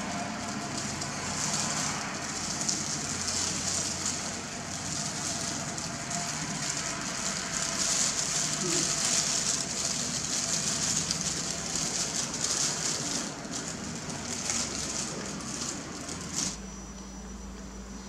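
Thin plastic food-prep gloves crinkling and rustling continuously as hands roll rice-paper spring rolls, a crackling noise that cuts off suddenly near the end.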